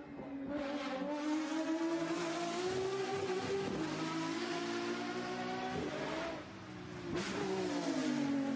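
Lamborghini SCV12's naturally aspirated V12 engine at high revs, accelerating hard past on the hillclimb with its note climbing slowly. About six seconds in it briefly drops off, then builds again before easing near the end.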